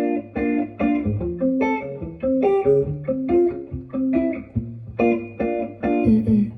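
Guitar music with plucked notes and a bass line, played through the Porsche Macan EV's Bose sound system with bass and treble flat and AudioPilot off, heard in the car's cabin.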